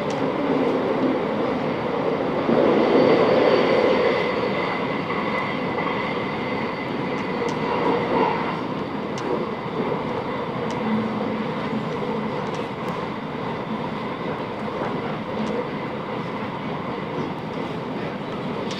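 Class 707 Desiro City electric multiple unit running between stations, heard from inside the carriage: a steady rumble of wheels on the track with a few faint clicks.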